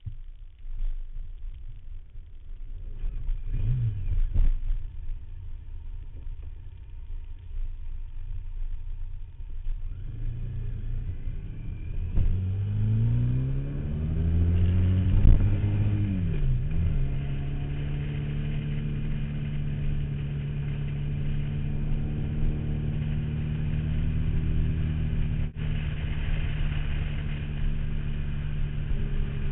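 Motorcycle riding on the road, heard from a saddlebag mount: a low rumble for the first several seconds, then the engine's pitch rises steadily, drops suddenly about two-thirds of the way through, and settles into a steady drone. A high-pitched rustle from the mount runs through it.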